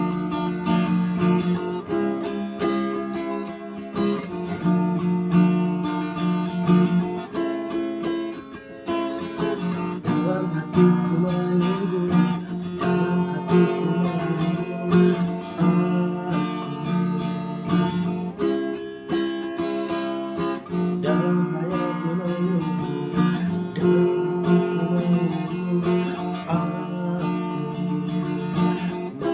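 Acoustic guitar music, strummed chords changing every few seconds.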